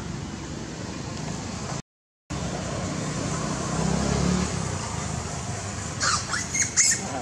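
Macaque giving a run of short, high-pitched squeals near the end, over a steady background hiss that cuts out briefly about two seconds in.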